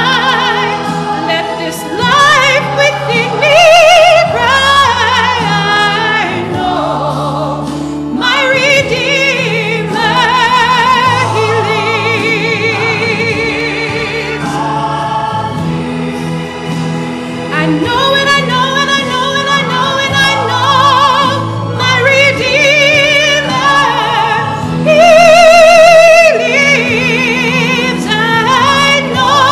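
A woman singing a gospel solo over instrumental accompaniment, holding long notes with vibrato.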